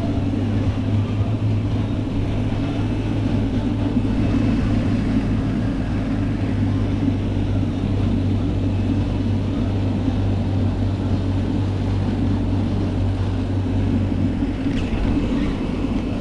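Pond paddlewheel aerators running: a steady motor hum over continuously churning, splashing water.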